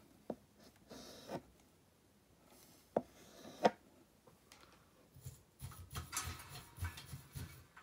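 Solder being wiped off a soldering iron tip: faint scraping and rubbing, a quick run of short strokes in the last few seconds, after a few sharp clicks earlier on.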